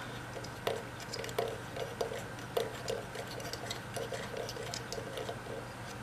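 Small nut being turned by hand onto the shaft of a vacuum cleaner motor, above its metal impeller, giving soft, irregular clicks and ticks about one or two a second.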